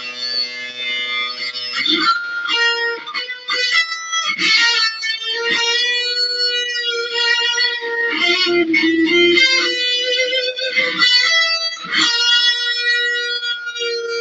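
Electric guitar played solo, a mix of held notes and quick runs of notes.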